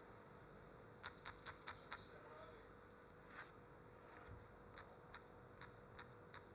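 Light taps on a tablet's on-screen keyboard as text is deleted and typed. There are five quick taps about a second in, a brief soft swish in the middle, then five more taps spaced about half a second apart.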